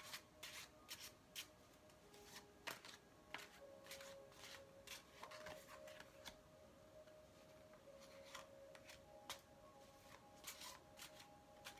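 Tarot cards handled by hand: shuffled and laid down on a table, a scattered run of soft clicks and snaps of card stock. A faint steady tone sounds underneath.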